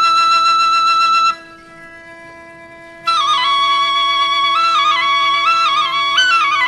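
Background music: a flute-like melody over a steady drone. A long held note breaks off just over a second in, leaving only the drone, and the melody returns about three seconds in, moving in steps.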